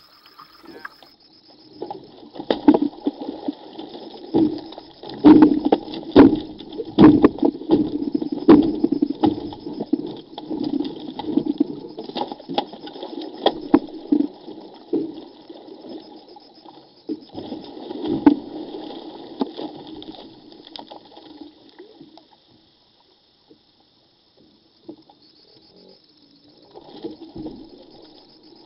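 A hooked corvina (meagre) thrashing at the surface alongside a kayak: repeated loud, irregular splashes and slaps on the water. The splashing dies away about 22 seconds in, then starts again briefly near the end.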